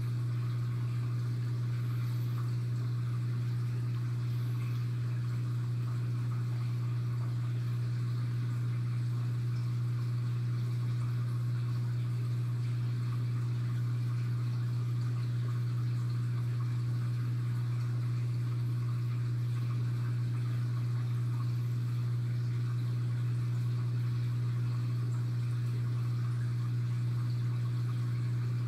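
Reef aquarium equipment running: a steady low electric hum from the tank's pumps, with faint water movement over it.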